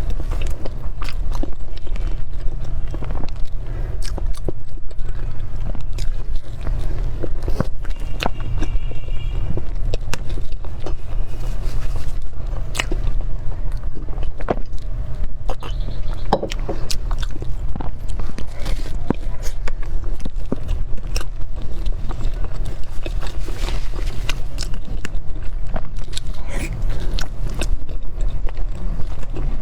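Close-miked eating of cream cake: bites and chewing with frequent small wet mouth clicks, irregular throughout. A steady low hum runs underneath.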